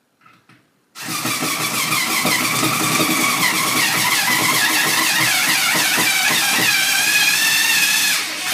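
Power drill running for about seven seconds after a brief short blip, its motor whine wavering in pitch as it works.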